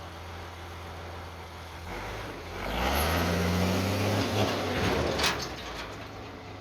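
M35A2 deuce-and-a-half's multifuel turbodiesel engine running at a low steady speed, then revving up hard under load for about three seconds. A couple of sharp cracks come near the end, and it drops back to a steady idle.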